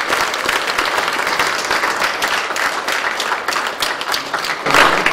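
Audience applauding, many hands clapping steadily, with a louder burst near the end.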